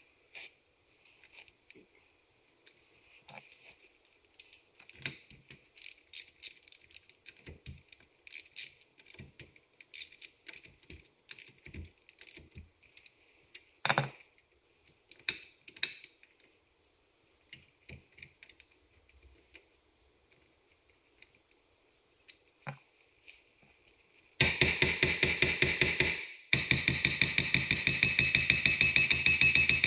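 Metal tools clinking and being handled during wheel-hub work, with one louder clank about halfway through. Near the end a rapid, loud mechanical hammering starts, pauses briefly, then resumes.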